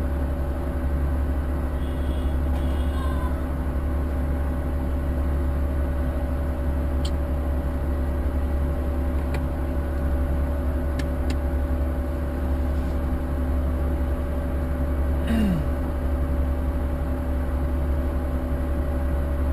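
A car engine idling at a standstill, heard from inside the cabin as a steady low hum with a few faint clicks.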